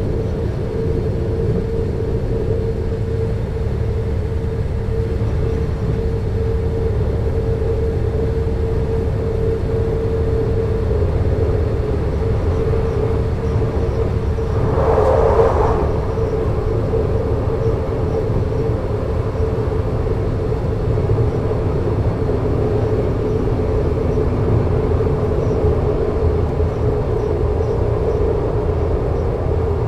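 Alstom LINT 41 H diesel multiple unit standing with its diesel engines idling: a steady low rumble with a constant mid-pitched tone over it. About halfway through, a brief louder rush of noise lasts a second or so.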